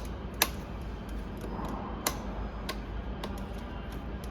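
A few sharp plastic clicks from a six-position selector switch being turned and its gears handled: two near the start, one about two seconds in, then fainter clicks every half second or so.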